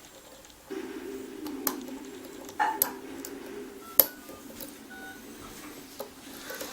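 Sharp metallic clicks and taps of a lock pick and tension tool working the pins of a challenge lock, a handful of separate clicks with the loudest about four seconds in. A low steady hum runs underneath from about a second in.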